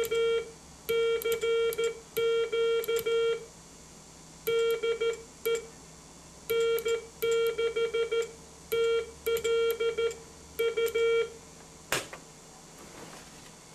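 Morse code CQ call sent by hand on a vintage tube CW transmitter, heard as a steady mid-pitched beep keyed on and off in short and long elements, in groups with short pauses between. The keying stops about 11 seconds in, followed by a single sharp click.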